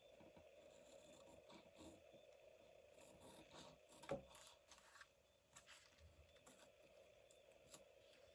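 Near silence with faint rustling and light taps of paper and card being handled, one slightly louder tap about four seconds in.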